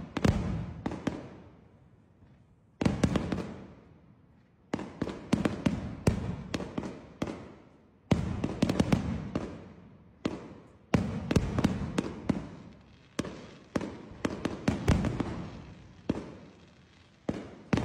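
Fireworks display: volleys of sharp bangs, each dying away in an echo, with short lulls between the volleys.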